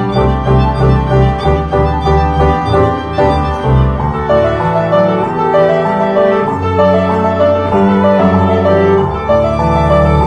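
Instrumental background music: a melody moving over long held low notes.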